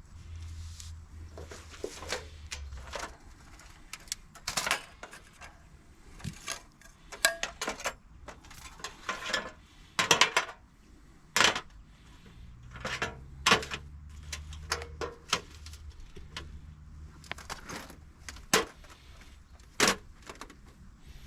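Irregular clinks, clicks and knocks of hard objects being handled, over a steady low hum.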